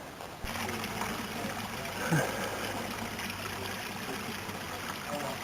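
Water running steadily with a rushing sound, starting about half a second in, over a faint low hum.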